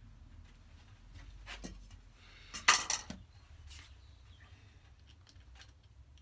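Tools being handled on a plywood workbench: a few light clicks and knocks, with one loud short clatter about two and a half seconds in.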